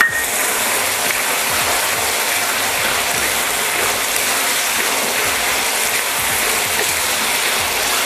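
Chopped onion, capsicum and tomato sizzling in hot oil in a kadai while a steel spoon stirs and scrapes them, with a brief metallic clink at the start.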